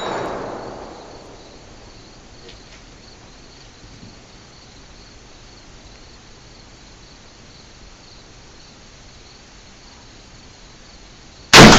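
Insects chirring steadily in a thin high band, while the echo of a gunshot fades away in the first second. Near the end there is one loud gunshot.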